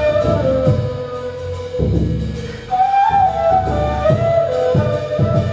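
Ney (end-blown flute) playing a slow melody of long held notes over deep strokes on a large frame drum struck with a mallet; several drum strokes slide down in pitch.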